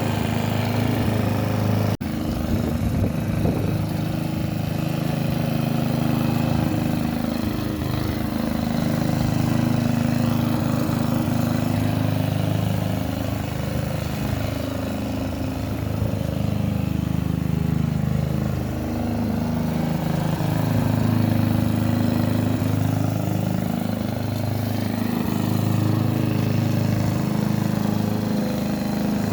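Hyundai HY145V petrol lawn mower engine running steadily, its pitch dipping and recovering several times.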